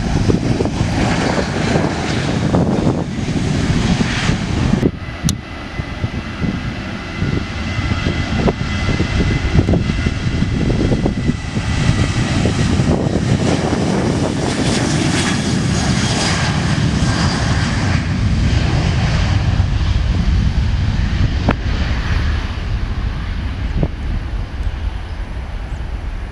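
Jet airliner engines at high power on the runway: first an Airbus A320-family jet passing, then, after a brief break about five seconds in, a Boeing 737 running at takeoff power through its takeoff roll and lift-off. The sound is a loud, steady jet rumble with a faint whine.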